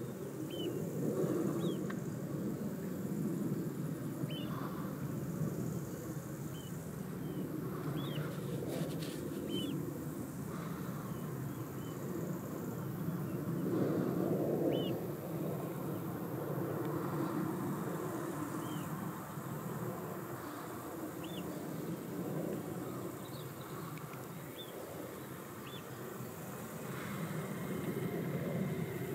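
Outdoor ambience: a low rushing noise that swells and fades, with short high bird chirps scattered throughout, one every second or two.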